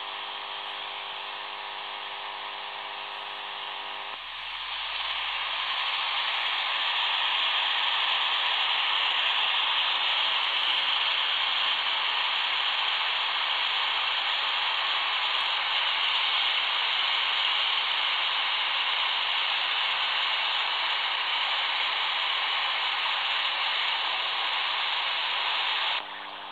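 Shortwave AM radio audio from a smartphone software-defined-radio app. It opens with a buzz of several steady tones, then gives way after about four seconds to a louder, steady rush of static as the receiver is tuned between stations. The buzz returns suddenly near the end.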